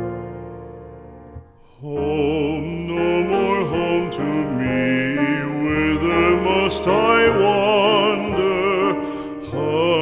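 Background music: a piano chord dies away, then from about two seconds in a solo voice sings a slow ballad with vibrato over piano accompaniment.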